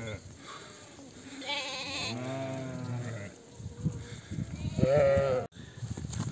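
Sheep bleating in a flock of ewes and lambs: a long, wavering bleat about a second and a half in, and a louder, shorter one near the end.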